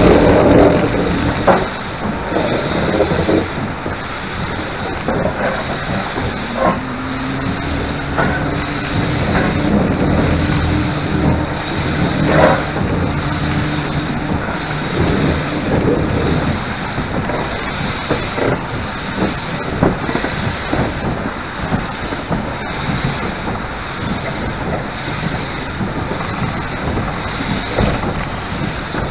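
GWR King class four-cylinder steam locomotive moving slowly, with a rhythmic pulsing hiss of steam from its open cylinder drain cocks and scattered clicks and knocks from the running gear and wheels on the track.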